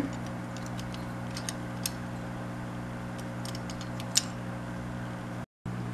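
A steady low hum with a few faint, scattered light clicks of small parts and packaging being handled.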